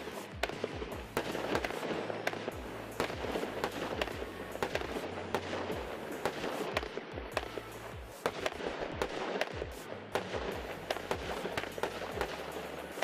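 Weco Slenderman 51-shot 20 mm firework battery firing: a fast run of launch thumps and the bangs of small breaking shells, several a second without a pause.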